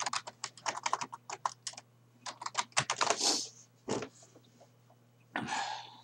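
Typing on a computer keyboard: a quick run of key clicks for about two seconds, then slower scattered keystrokes, with two short hissing noises, one midway and one near the end.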